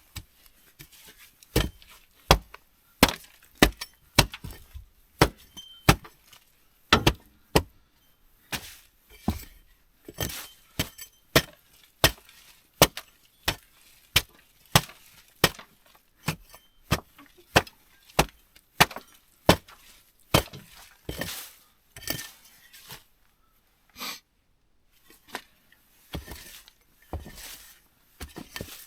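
A long run of sharp knocks, about one or two a second, with a few short pauses and fewer, more spaced blows near the end.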